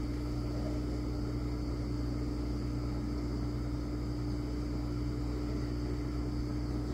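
Steady, even hum with a constant low tone and no changes or separate events.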